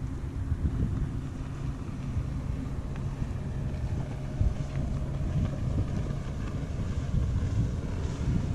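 Wind buffeting the microphone, with a motorboat's engine running steadily across the water as the boat passes; a faint engine hum comes in more clearly in the second half.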